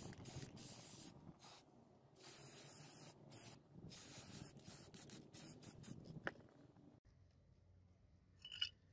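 Cloth rubbing finish onto a wooden handle in short, irregular wiping strokes, faint and scratchy. About seven seconds in it stops abruptly, and near the end comes a short, bright chiming sound.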